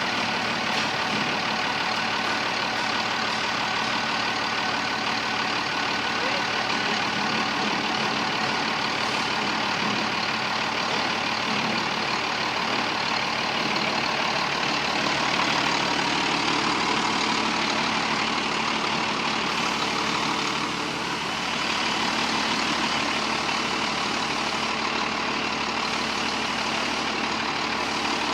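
International DT 360 inline-six diesel engine running steadily, freshly rebuilt, with its injection timing set at 24 degrees BTDC.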